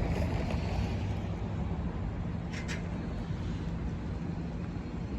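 BNSF GE Dash 8-40BW diesel locomotive's V16 engine running with a steady low rumble. A short hiss comes about two and a half seconds in.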